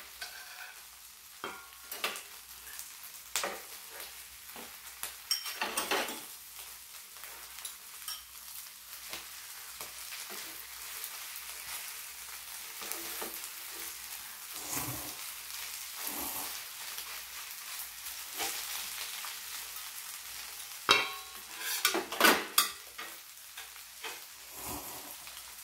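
Squid and green-onion pajeon sizzling on an electric griddle, a steady hiss, with clicks of chopsticks and metal utensils against the griddle, pan and bowl. A few louder noodle slurps of ramen come near the end.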